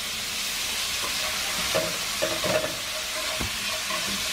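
Apple snails sizzling as they stir-fry in hot oil in a pan, with the scrape of a utensil stirring them through the steady hiss.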